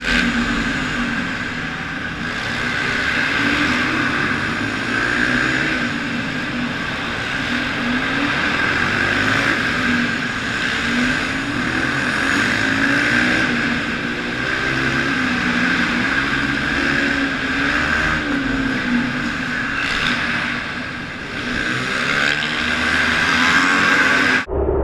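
Small supermoto motorcycle engine heard from on board, its revs rising and falling again and again as the rider accelerates and backs off around a tight track, with a steady hiss of noise above it. The sound cuts off abruptly near the end.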